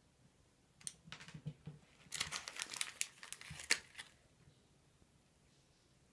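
Plastic cat-food bag crinkling as it is handled: a few scattered crackles about a second in, then a dense burst of crinkling for about two seconds that stops abruptly.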